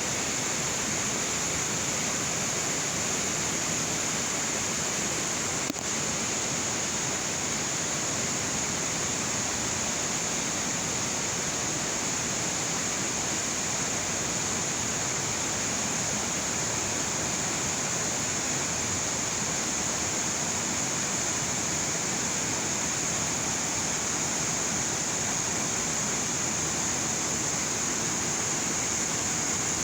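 Waterfall pouring steadily: a constant, even rush of falling water, with a steady high-pitched hiss above it.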